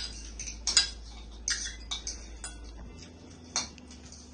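Eating utensils clinking and scraping against bowls as noodles are eaten, a handful of sharp, irregular clicks.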